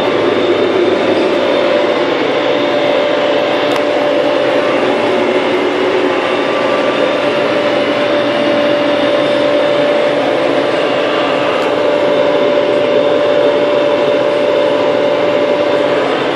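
New Holland TD100D tractor's diesel engine and drivetrain running steadily as the tractor drives along the road, heard from inside the cab, with a steady whine over the engine noise.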